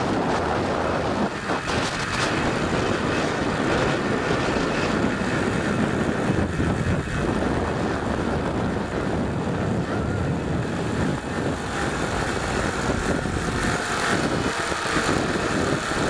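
Steady rush of wind on the microphone together with the whir of a zip line trolley's pulleys rolling fast along the steel cable.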